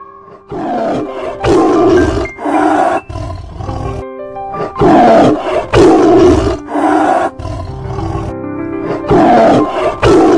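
Lion roaring in three bouts of about three roars each, over soft background music.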